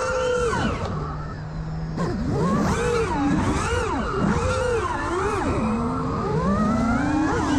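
Brushless motors and Gemfan Sbang propellers of a 5-inch FPV freestyle quadcopter (AxisFlying Diavola 1960KV motors on 6S) whining up and down in pitch with rapid throttle changes. The pitch holds steady and low for about a second near the start, then swoops up and down repeatedly.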